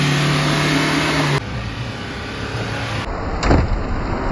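Mahindra Scorpio's engine pulling hard on a sandy off-road climb, a steady low drone that cuts off abruptly about a second and a half in. After further cuts, a Mahindra Bolero's engine labours up a sandy track, with a brief falling whoosh about three and a half seconds in.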